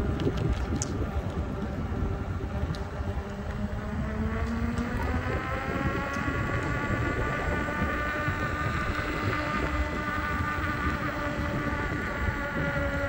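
Veteran Sherman electric unicycle's hub motor whining while it is ridden. The pitch climbs over a few seconds as it speeds up, then holds and eases down slightly. Wind rumbles on the microphone underneath.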